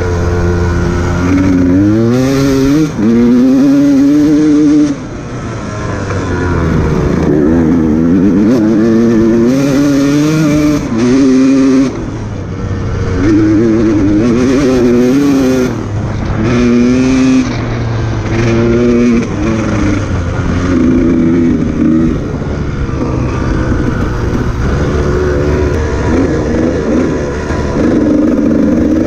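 Dirt bike engine revving up and down over and over as the throttle is opened and closed, its pitch rising with each burst and falling back between them.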